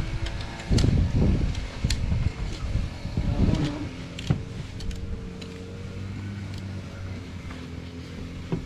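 A motor running with a steady low hum, with heavy rumbling and a few knocks during the first four seconds.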